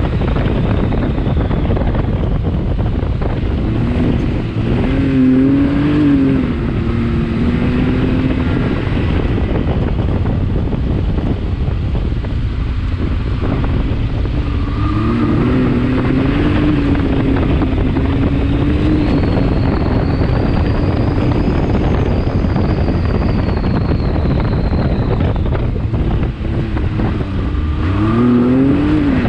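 Can-Am X3 XRC Turbo side-by-side's turbocharged three-cylinder engine running under way, its pitch rising and falling several times as the throttle is opened and eased off. A faint high whine rises and falls midway.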